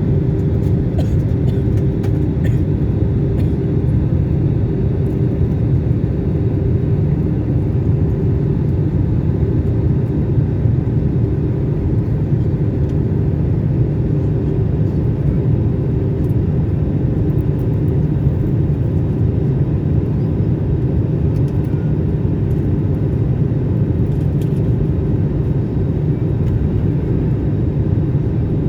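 Steady low rumble of an airliner's engines and rushing air, with a faint steady hum above it and no rise or fall, as heard inside the cabin.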